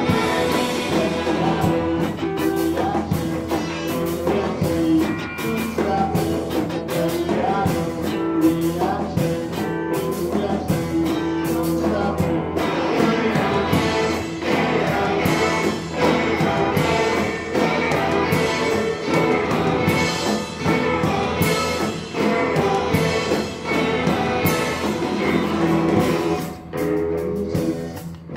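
Live rock band playing: electric guitar and drums, with some singing.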